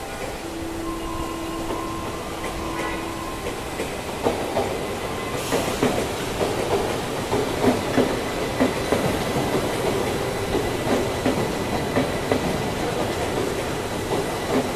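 CRH2B high-speed electric multiple unit passing. A steady horn tone sounds for the first few seconds. Then the wheels clatter over rail joints in quick irregular clicks over a rising rush of the passing cars.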